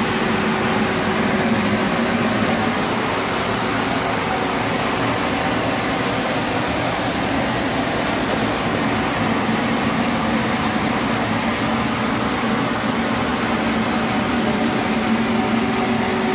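Ventilation fan running steadily: an even rush of air with a low, steady hum.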